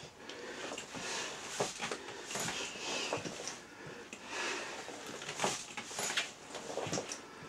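Breathing through a gas mask, with the rustle of a rubberised apron, as a person does sit-ups. It comes in irregular noisy bursts about once a second.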